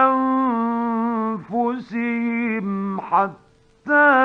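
A man reciting the Quran in the melodic mujawwad style, holding long ornamented notes on a phrase, then a brief pause and a new phrase beginning near the end. A faint steady hum of the old 1950s radio recording shows in the pause.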